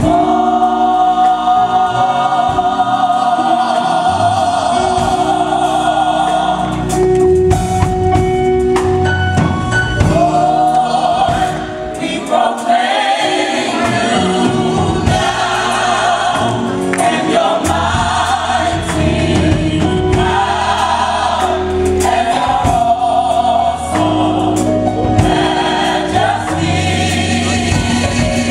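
Gospel choir singing with instrumental accompaniment, voices holding long notes with vibrato.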